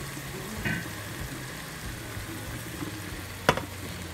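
Thick eggplant and egusi stew sizzling and simmering in a stainless steel pan, with a sharp knock about three and a half seconds in as cut mushrooms are tipped into the pan.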